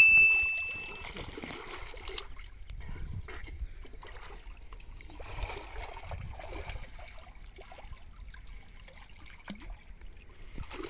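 A click with a short bell-like ding from a subscribe-button animation at the start, then another quick double click about two seconds in. Then water sloshing and splashing as men wade and move about in shallow river water.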